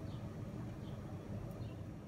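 Steady low background hum with a few faint soft ticks as diced cucumber is spread out by hand on kitchen paper.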